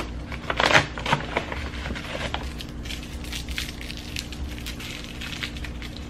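Crinkling and crackling of a foil wrapper as fingers peel it off a filled chocolate ball, loudest about a second in.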